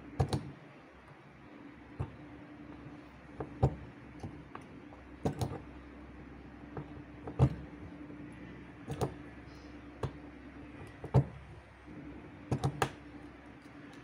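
Punch-down tool seating and cutting wires into the slots of a network keystone jack: about a dozen sharp clicks at irregular intervals. A steady hum runs underneath.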